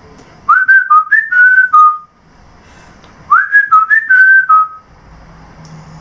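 A short whistled tune of five or six clear notes stepping up and down, whistled twice with about a second's pause between.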